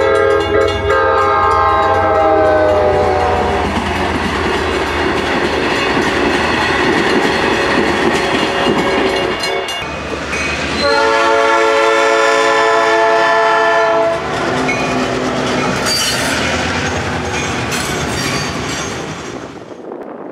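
A diesel locomotive horn sounds a chord of several notes and drops in pitch as the train passes, followed by the rumble of the train going by. Partway through, a second horn blast of about three seconds is followed by train wheels clattering over the rail joints.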